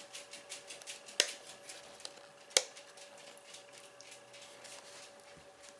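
Two sharp clicks about a second and a half apart from the LED digital alarm clock's alarm button being pressed to switch on its second alarm, among faint handling rustles and ticks on the plastic case, over a faint steady hum.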